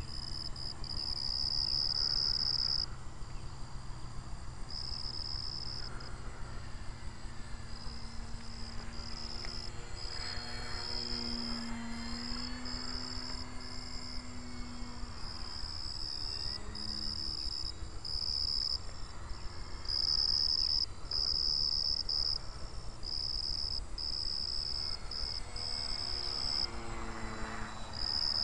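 Insects chirping in loud, high-pitched pulses about a second long. Underneath is the faint hum of a small radio-controlled P-40 model plane's motor, whose pitch shifts as the plane flies past, once around the middle and again near the end.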